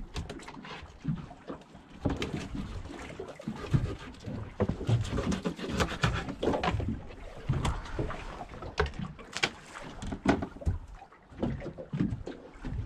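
Small fishing boat at sea: water slapping the hull and wind rumble, with irregular knocks and clatter on deck.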